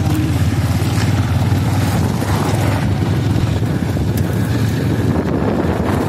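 Steady low engine rumble with wind buffeting the microphone, from a vehicle moving along a gravel road.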